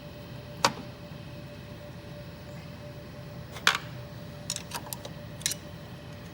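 Several sharp metal clicks and clinks of small parts and hand tools being handled during reassembly of an embroidery machine head, the loudest about three and a half seconds in and a quick cluster a second later, over a steady background hum.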